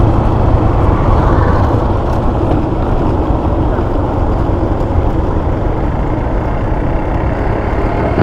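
Motorcycle engine running steadily while riding, mixed with loud, constant wind and road noise on the microphone.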